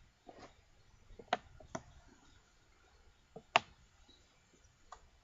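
A few sharp clicks and knocks from tools and a sharpening strop being handled and clamped, with the loudest knock about three and a half seconds in.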